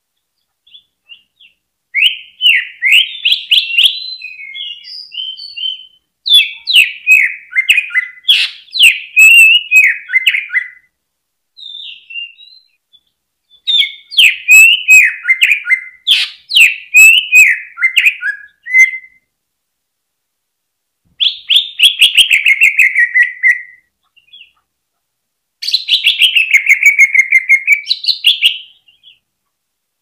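Male greater green leafbird (cucak ijo) singing in several loud bursts of rapid chattering warble, mixed with sharp clicks and separated by short pauses. The last two phrases end in quick trills that slide down in pitch.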